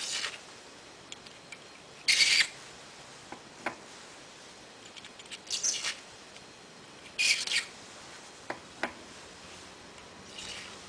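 Hand deburring tool scraping the case mouth of brass pistol cases in about four short twists, with a few light clicks between them.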